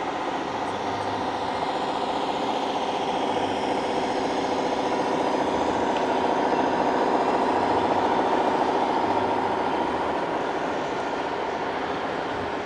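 RC scale truck's sound module playing a simulated big-rig diesel engine through its small speaker, running steadily and growing a little louder around the middle.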